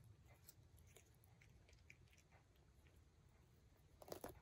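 A tabby cat biting off and chewing blades of cat grass: faint, scattered crunching clicks, with a louder cluster of bites about four seconds in.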